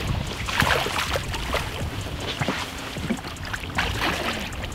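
Choppy lake water splashing against the side of the boat while a hooked walleye thrashes at the surface and a hand reaches into the water to grab it. There are many short, irregular splashes over a steady low rush.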